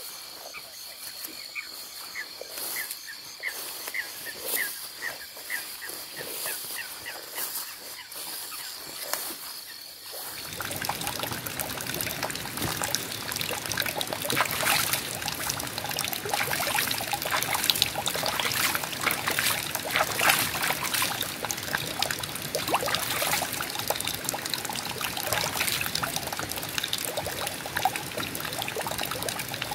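A stream's water running and trickling over rocks, starting abruptly about ten seconds in and louder than anything before it. Before that, a quiet night chorus: a steady high insect trill with a run of rhythmic chirps.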